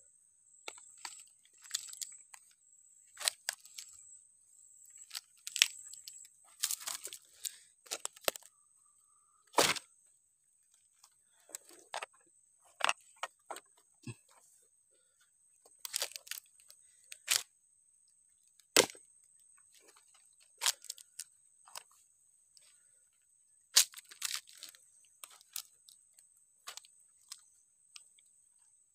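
Dry leaves and twigs crackling and snapping as hands rummage through mangrove leaf litter and mud in search of mangrove clams. The crackles come irregularly, a few every couple of seconds, over a faint steady high-pitched tone.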